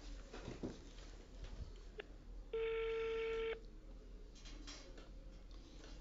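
Telephone ringback tone heard over the line: a single steady one-second tone about halfway through, a sign that the called phone is ringing and has not yet been answered.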